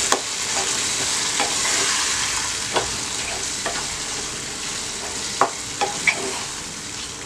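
Chicken liver and gizzard pieces sizzling in masala in a nonstick pan while being stirred with a wooden spatula, which clicks and scrapes against the pan a few times. The sizzle eases slightly toward the end.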